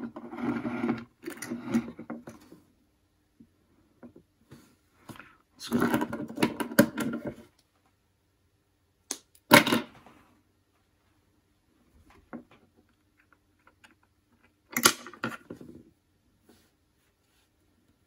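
Handling noise as metal guitar potentiometers and wires are moved and set down on a wooden board: short bursts of rattling and scraping, with a sharp knock about halfway through and another about three-quarters of the way in.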